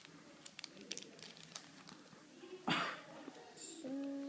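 Small plastic toys and their packaging being handled: scattered light clicks and crinkles, with one short, sharp rustle about two and a half seconds in.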